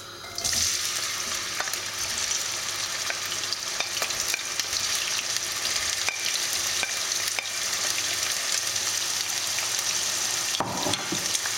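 Chopped onion sizzling in hot sunflower oil in a frying pan. The sizzle sets in about half a second in and holds steady, with a few light clicks.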